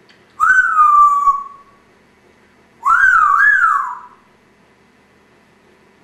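Congo African grey parrot whistling twice: first a whistle that slides down in pitch, then a longer one that rises and falls twice.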